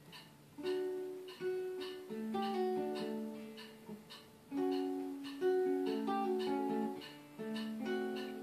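Acoustic guitar being picked in a slow melody, each note ringing out for up to a second before the next.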